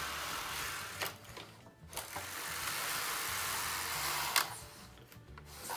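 Knitting machine carriage pushed across the needle bed twice, each stroke a rushing mechanical rattle as it runs over the needles and ending in a click at the end of the bed. This is a test run with a newly replaced needle brake spring, and the needles move.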